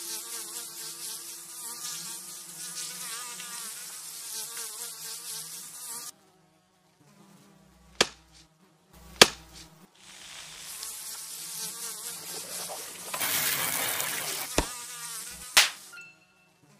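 Housefly buzzing in a wavering drone. It drops out for a few seconds, when two sharp clicks sound, then starts up again, louder for a moment, with two more sharp clicks near the end.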